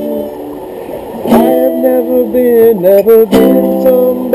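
Music: a guitar plays a melodic instrumental passage between sung lines, with held notes that slide in pitch. It is quiet for about the first second, then fuller.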